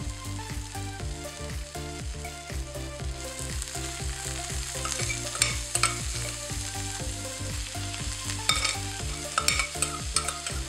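Boiled moong dal sizzling as it fries in hot spiced oil in a pan, the sizzle growing stronger a few seconds in. A few sharp scrapes and clicks of a spatula stirring it come through the middle and near the end.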